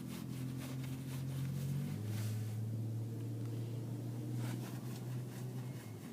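Steady engine drone heard inside a car's cabin, dropping a step in pitch about two seconds in, with scattered short clicks over it.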